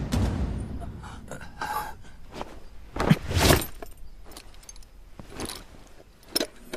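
Sound effects of an animated drama: a few short clicks and knocks, with a louder rush of noise lasting about half a second about three seconds in, and a sharp click near the end.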